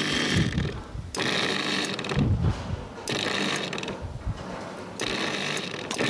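Air blown by mouth through a clear plastic hose into a dishwasher's adjustable water-level pressure switch, in several puffs of about two seconds each with a sharp click at each break. The blowing stands in for water pressure to test whether the switch trips at the full level.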